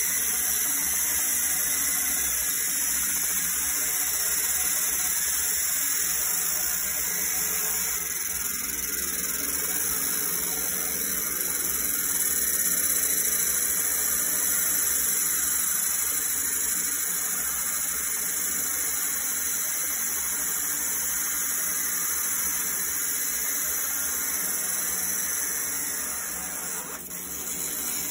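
Fiber laser engraver etching a Glock 17's steel slide: a steady hiss from the beam striking the metal and throwing sparks, over the rushing air of a fume extractor, dipping briefly near the end.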